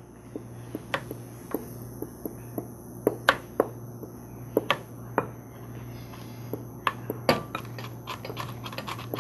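Kitchen prep sounds: a knife chopping nuts on a plastic cutting board and a wooden spoon stirring batter in a glass mixing bowl, giving irregular sharp knocks and taps that come faster near the end. A low steady hum runs underneath.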